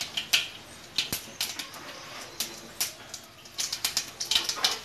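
Mustard seeds popping and spluttering in hot oil in a kadai: irregular sharp pops over a faint sizzle, coming thicker and faster near the end.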